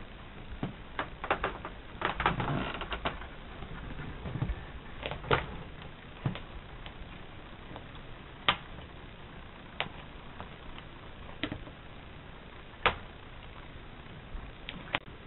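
Irregular light taps and clicks over a steady hiss: a quick flurry about two seconds in, then single sharp clicks every second or so.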